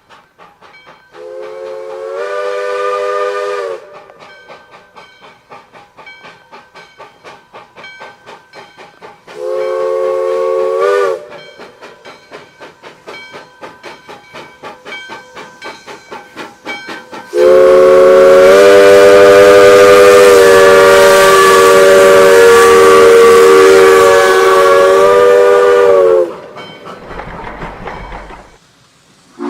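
Steam locomotive (maria fumaça) working with a steady rhythm of exhaust chuffs, blowing its multi-note steam whistle three times: two short blasts, then one long, loud blast of about nine seconds.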